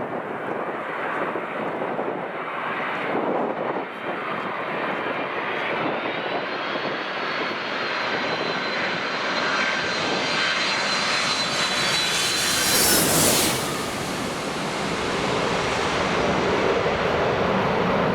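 Airliner passing close by, its engine whine building to a peak about thirteen seconds in and then falling away. Gusting wind buffets the microphone throughout.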